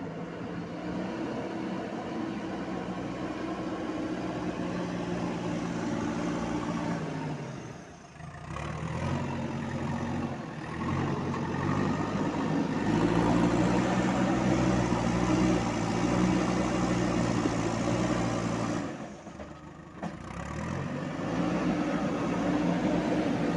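JCB 3DX backhoe loader's diesel engine running steadily and revving up at times. The sound drops away briefly twice, about a third of the way in and again past the three-quarter mark, then the engine picks up again.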